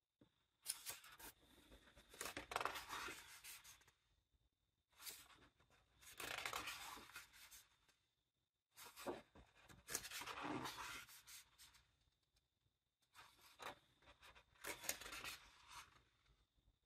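Pages of a large hardcover art book being turned by hand, one after another: four turns, each a crisp paper rustle and sweep with small clicks as the page is lifted and laid down.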